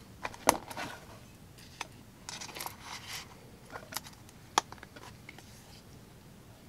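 A fixed-blade knife being slid into its leather sheath and handled on a wooden table. Sharp clicks and knocks, the loudest about half a second in and another about four and a half seconds in, with leather rustling between about two and three seconds in.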